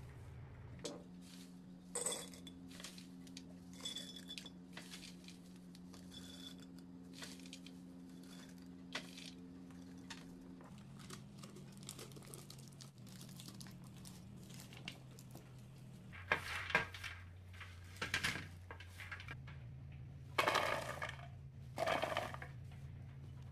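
Dried peanuts rattling and clicking as hands stir and scoop them on a metal baking tray, with a faint steady hum behind. Near the end come several louder rattling bursts as cupfuls of peanuts are poured into a plastic food processor bowl.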